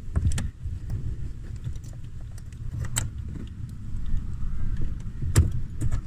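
Small plastic clicks and rattles from a Ford Falcon AU brake light switch being pushed onto the brake pedal bracket, over a steady low rumble. The sharpest clicks come about three seconds in and again near the end.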